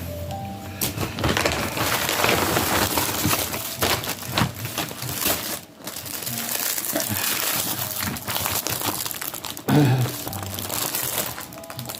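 Plastic packaging crinkling and crackling as it is handled and opened, in dense bursts through most of the stretch.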